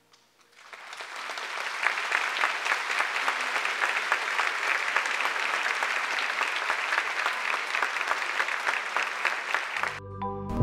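Audience applauding after a ballet scene, building up within the first second or two and then holding steady. The applause cuts off near the end, when music begins.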